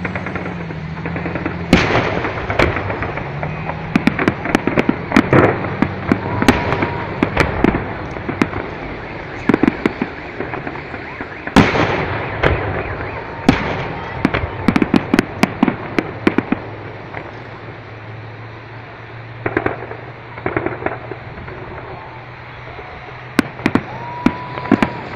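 Fireworks display: aerial shells bursting overhead in volleys of sharp bangs and crackles, coming in clusters with the densest run a little past the middle, over a steady low hum of road traffic.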